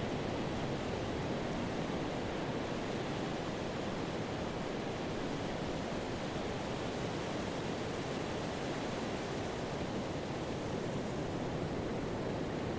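Pacific surf washing onto a sandy beach: a steady, even rush of breaking waves and foam, with no single crash standing out.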